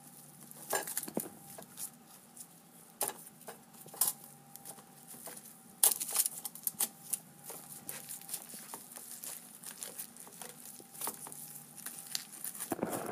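Crumpled aluminium foil being handled and pulled apart by a gloved hand: irregular crinkling and crackling, with a sharper crackle about six seconds in.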